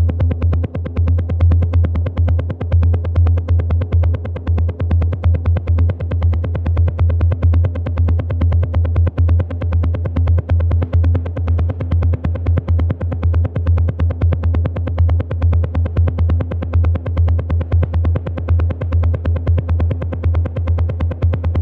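Techno pattern from a Roland TR-8 drum machine: a heavy, steady low bass under very fast, dense hi-hat ticks, with a held mid tone.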